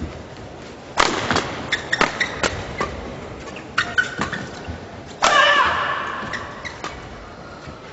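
Badminton doubles rally: a string of sharp racket hits on the shuttlecock and knocks and squeaks of shoes on the court, with a loud hit about a second in. About five seconds in comes a sudden loud burst of crowd noise with voices that fades away.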